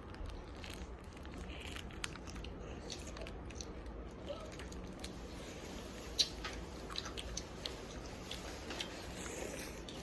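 Someone biting and chewing tanghulu, the hard candied sugar shell cracking in scattered sharp crunches, the loudest about six seconds in.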